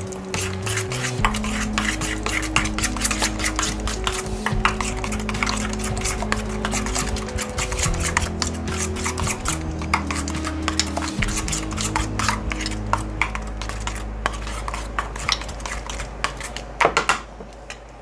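A metal spoon stirring a thick mayonnaise-based sauce in a stainless steel bowl, with rapid clinks and scrapes against the bowl's sides, thinning out near the end. Background music plays underneath.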